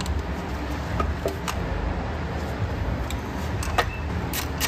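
Light clicks and taps of parts being handled and fitted as the throttle body and idle air valve go back onto a BMW M54 engine, with a quick run of clicks near the end, over a steady low background rumble.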